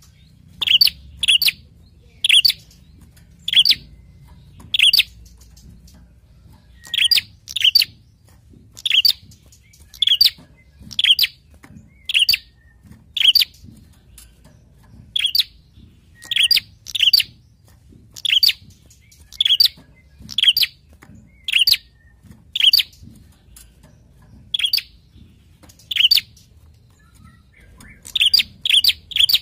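A prinia (prenjak) giving loud, sharp, high chirps, singly or in pairs about once a second, quickening into a rapid run near the end.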